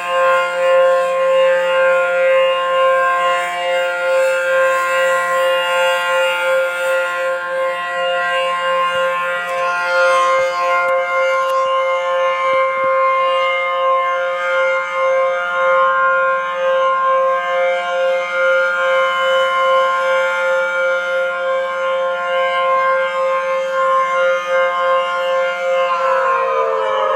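WPS 4004 (Allertor 125) electronic outdoor warning siren sounding a steady alert tone at a constant pitch with many overtones. Near the end the pitch starts to fall as it winds down.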